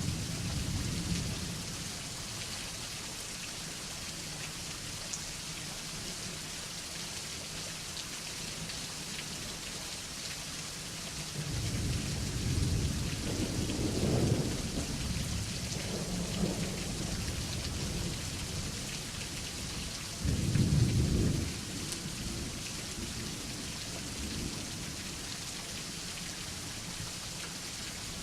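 Steady heavy rain falling, with thunder: a long rolling rumble from a little before the middle, then a shorter, louder peal about two-thirds of the way through.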